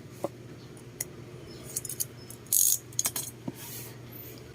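Small clicks and knocks of objects being handled, with a brief rustle a little past halfway and a few more clicks after it, over a steady low hum.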